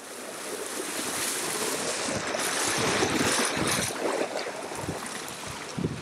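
Small waves breaking and washing onto the shore, a steady rush of surf that swells to its loudest about three seconds in, then eases.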